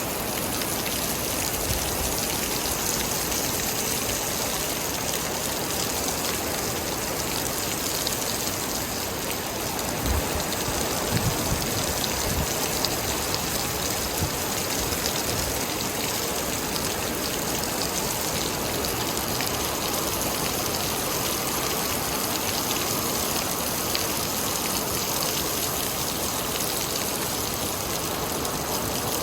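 Steady rain falling, with a constant hiss and scattered louder individual drops.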